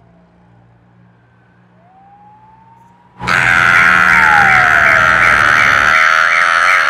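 Car alarm sound effect starting suddenly about three seconds in, a loud electronic siren warbling rapidly at about five cycles a second. Before it there are only faint gliding whistle-like tones.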